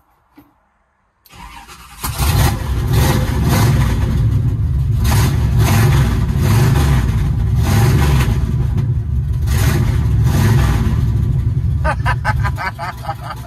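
A 1979 Chevrolet Camaro's engine cranks briefly on its first start-up, catches, and runs loud with repeated throttle surges, easing back near the end with a quick run of ticks.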